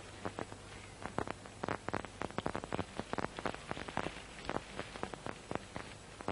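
Rolled bamboo-slat mat being pushed and unrolled along the ground, its slats clicking and clattering irregularly, several clicks a second of uneven strength, over a faint steady hum.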